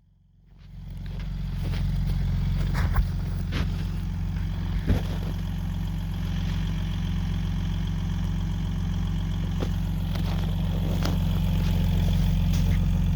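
A motor running steadily at idle: a low, even hum that fades in at the start, with a few light knocks over it.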